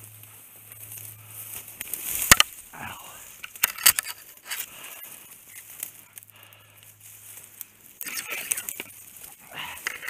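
Dry brush and twigs crackling and scraping against the hunter's clothes and gun as he pushes through snowy brush, with irregular rustling throughout. A sharp crack about two seconds in is the loudest sound, with smaller snaps around four seconds and near the end.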